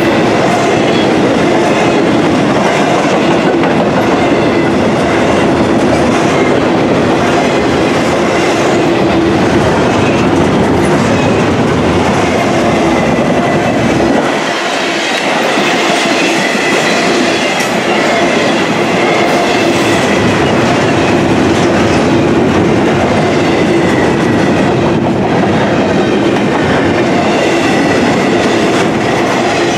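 Freight cars of a double-stack intermodal train rolling past, with a steady rumble of steel wheels on the rails and wheels clicking over the rail joints. The low rumble drops briefly about halfway through.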